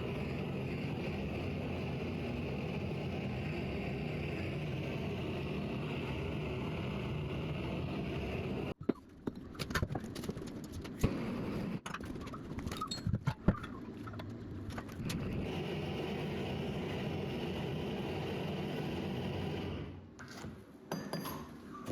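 Gas torch flame running steadily while it heats the end of a steel auger tube. Partway through it breaks off into a series of sharp metal clanks and knocks, then the torch runs steadily again before stopping near the end.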